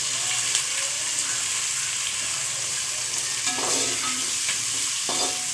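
Chopped onions frying with a steady sizzle in hot oil in an aluminium pot, stirred with a metal spatula that gives a few light clinks against the pot.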